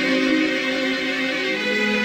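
Music: a slow melody of long held notes, each changing pitch after half a second or more, with no break.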